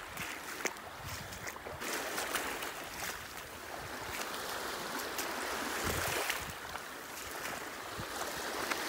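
Outdoor wind and water noise, an even rushing hiss, with scattered small clicks and knocks.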